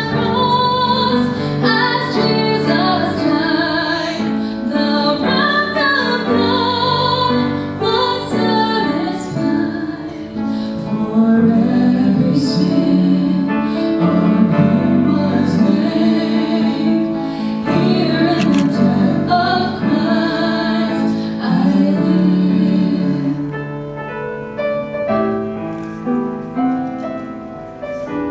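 A man and a woman singing a duet into handheld microphones over piano accompaniment. The voices stop about 23 seconds in, and the piano plays on alone and more quietly.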